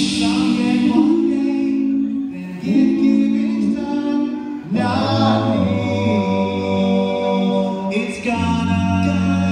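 Male a cappella vocal group singing live into microphones: sustained multi-part chords, with a deep bass line joining about halfway through.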